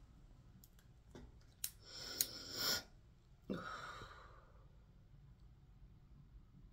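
A woman drawing a breath with a small mouth click, then letting out a short sigh that fades. Otherwise quiet room tone.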